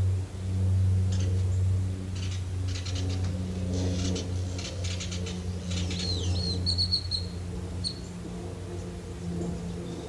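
A bird chirping outdoors, with a wavering whistle and a quick trill about six seconds in, over a steady low hum.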